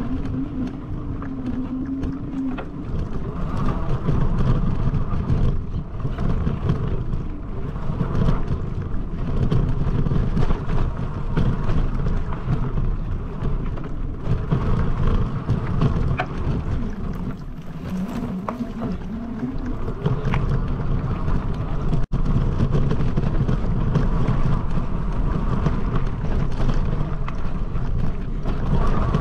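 Mountain bike rolling over a dirt trail, with a steady rumble and many small rattles and clicks, and wind buffeting the camera microphone.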